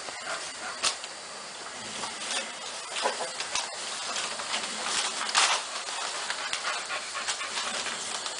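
Young American Staffordshire terrier puppies snuffling and shuffling about on newspaper, the paper rustling and crackling now and then over a steady hiss, loudest about five seconds in.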